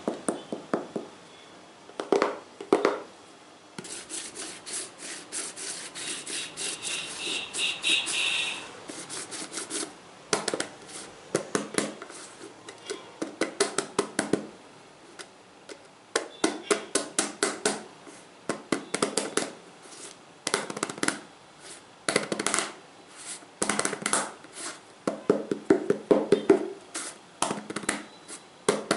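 Fingertips tapping and scratching on assorted objects in quick runs of taps, with a faster continuous flurry in the first third that carries a faint ringing tone near its end.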